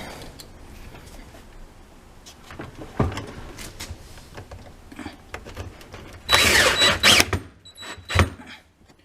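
Dishwasher mounting clips and hardware being handled, with scattered knocks. About six seconds in comes a loud burst of a small power tool, lasting about a second, typical of a screw being driven to fasten the dishwasher's anti-tip mounting clips. A sharp knock follows a second later.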